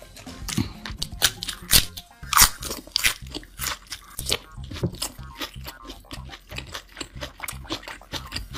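Close-miked chewing and crunching of a hamburger, with the loudest crunches about two seconds in, over background music with a steady low beat.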